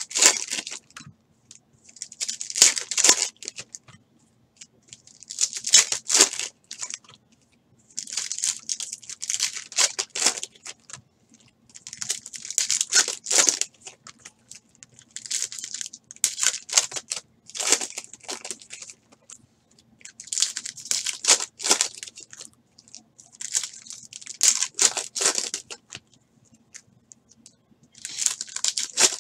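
Foil trading-card packs being torn open one after another, the wrappers ripping and crinkling. The crackly bursts come every two to three seconds.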